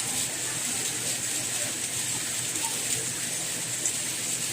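Steady soft rain: an even, high hiss that holds unchanged.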